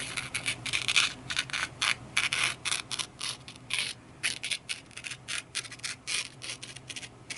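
A sharp pocket-knife edge slicing thin paper in a quick run of short, scratchy cuts, about three a second.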